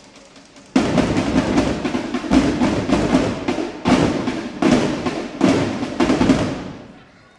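Drill team drum line playing: soft rapid drumming breaks into a loud full-section entry a little under a second in. Heavy accented hits come about every 0.8 s, then the playing fades out near the end.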